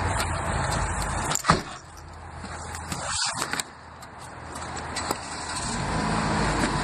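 A child climbing into a car's back seat: clothes rustling and bumping against the seat and door, with one sharp knock about a second and a half in and a smaller click near the end.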